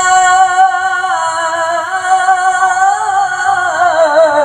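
Young male qari reciting the Quran in melodic tilawah style, drawing out one long sung note on the end of "illā" in "wa qaḍā rabbuka allā taʿbudū illā iyyāh". The note holds steady, then wavers in ornamental trills and glides downward near the end.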